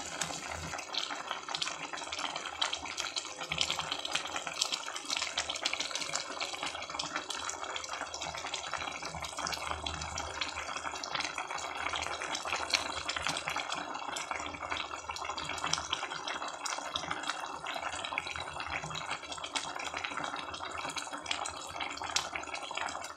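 Chicken tinola soup boiling hard in a metal pot: a steady bubbling with many small pops and crackles.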